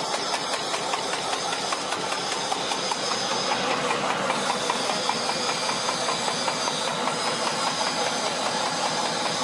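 Herb cutting machine running steadily: a rapid, even ticking over a steady hiss.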